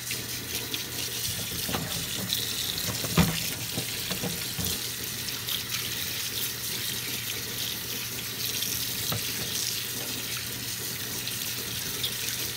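Kitchen tap running a thin stream of cold water onto crab legs in a stainless steel sink, a steady splashing hiss, to thaw them. A single sharp knock comes about three seconds in.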